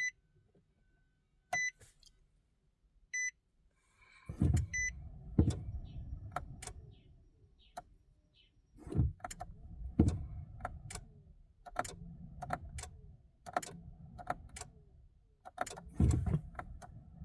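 A 2019 Nissan Titan's cabin chime beeping four times, about a second and a half apart, then a run of irregular clicks and knocks, with no engine cranking: the truck has a no-start, no-crank fault.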